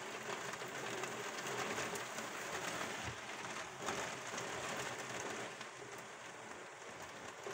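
Heavy rain falling steadily, beating on the window glass.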